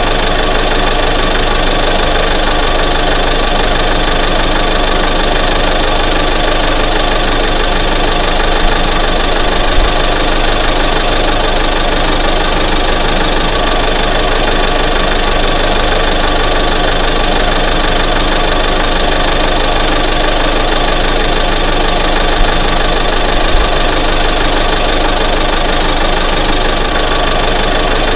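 1988 Ford F-150 pickup truck engine running steadily at an even speed, with no revving.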